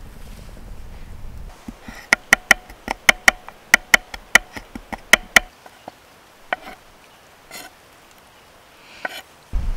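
Kitchen knife chopping garlic on a wooden cutting board: a quick run of sharp knocks, about three to four a second, each with a short ring from the blade, then a few slower single cuts.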